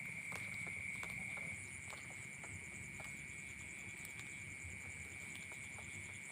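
A steady, high-pitched night insect chorus, a continuous shrill tone with a faster pulsing buzz above it, with a few faint clicks.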